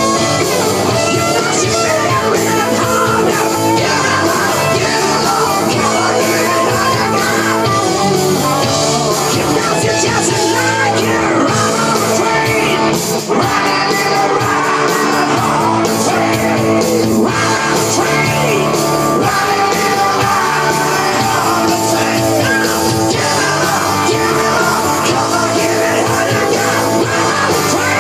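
A rock song with a singer over guitar.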